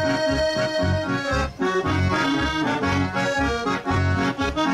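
Solo accordion playing the closing instrumental bars of an enka-style Japanese song, with a melody over an even, pulsing bass-and-chord accompaniment and no singing.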